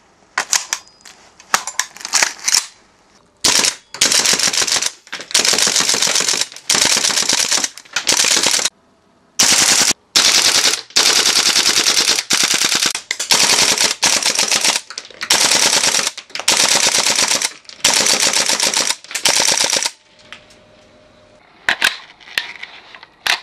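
Western Arms M4A1 gas blowback airsoft carbine firing a long string of full-auto bursts, each about a second long with short pauses between, the blowback bolt cycling in a rapid clatter. A few separate sharp clicks come before the bursts and again near the end.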